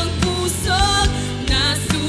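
Live worship band playing a Tagalog praise song, with a lead singer's voice over acoustic guitar and a steady bass line.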